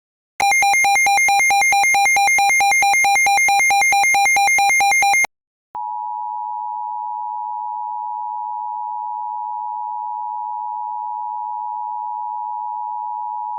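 A loud, buzzy electronic alert tone warbles rapidly between two pitches, about four to five times a second, for about five seconds. After a brief gap comes the steady two-tone Emergency Alert System attention signal, held for about eight seconds, which announces an alert message to follow.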